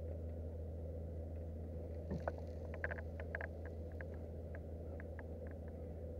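Light, irregular clicks of a spinning fishing reel being wound, bunched about two to three and a half seconds in, over a steady low hum.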